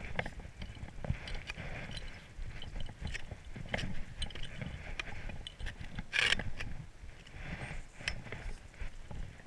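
Irregular crunches and muffled thuds of an ice axe being planted and boots kicking steps in fresh, soft snow on a steep slope, the loudest crunch about six seconds in.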